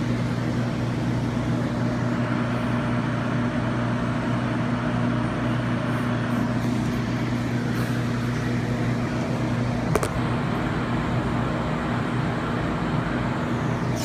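A steady mechanical hum with a low drone and an even rushing noise over it, and a single sharp click about ten seconds in.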